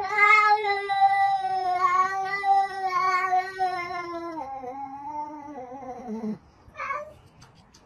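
A cat yowling at another cat in a stand-off: one long drawn-out call of about six seconds that slides lower toward its end, then a short call about a second later.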